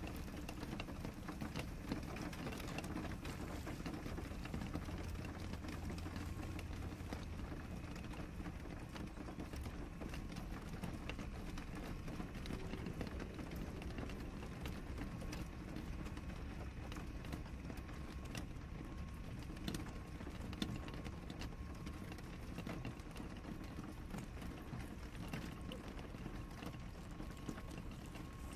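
Parcel packaging being handled and opened by hand: plastic mailer and cardboard rustling, crinkling and tearing, with many small crackles and clicks over a steady background hiss.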